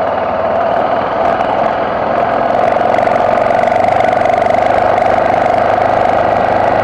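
BMW F650GS motorcycle engine running steadily under way, growing a little louder about two and a half seconds in.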